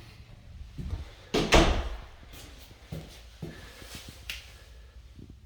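A few knocks and thumps, the loudest and heaviest about a second and a half in.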